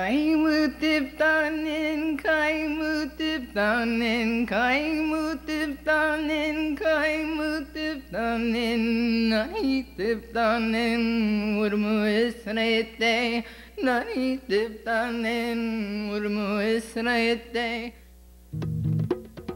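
A solo voice singing long, wavering held notes with no other instrument, until a plucked bass comes in near the end.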